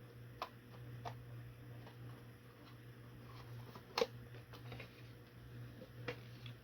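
Faint clicks and taps of the plastic dock casing and parts being handled during disassembly, a handful of separate ticks with one sharper click about four seconds in, over a low steady hum.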